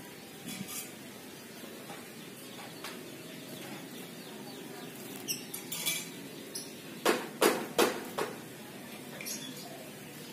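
Light metallic clinks and taps: a few faint high clicks early, then four sharp, loud clinks in quick succession about seven to eight seconds in.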